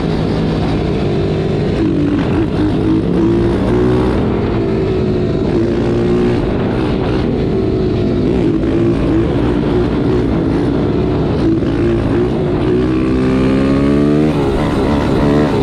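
Mini pit bike engine running under way, its pitch rising and falling with the throttle. It climbs steadily as the bike accelerates a little before the end.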